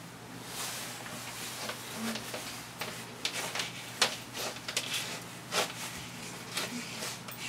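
Scattered rustles and light knocks from a child shifting about in a nylon snowsuit and backpack on a wooden floor, the sharpest about four seconds in, over a faint steady low hum.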